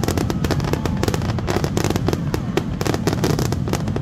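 Aerial fireworks going off in a rapid, unbroken string of bangs and crackling, many bursts a second over a low rumble.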